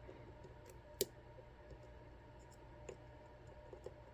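Lock pick and tension tool clicking in the keyway of an ASSA Twin 6000 lock: one sharp click about a second in, then a few faint light clicks near the end, while the picker feels for any more sidebar movement.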